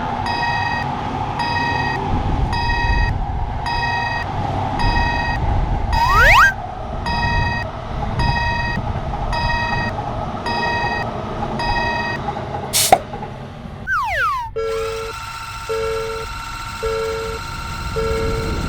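Railroad crossing warning bell ringing, an electronic ding about twice a second, over a low rumble. About 14 seconds in it gives way to a different crossing alarm, a lower pulsing two-note tone, with loud sliding pitch sweeps near the middle and just before the change.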